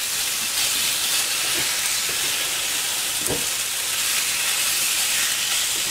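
Chili-marinated carne enchilada sizzling in a hot skillet as more raw pieces are laid into the fat, a steady hiss. A single low knock sounds about three seconds in.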